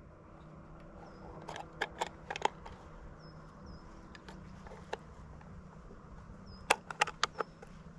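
Scattered sharp clicks and clacks of a shotgun being handled before firing, in small clusters about two seconds in and again near the end. Faint short high chirps come now and then.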